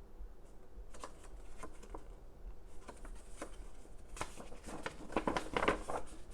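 Paper rustling and light clicks as the kit's folded paper insert and packaging are handled, busiest and loudest about four to six seconds in.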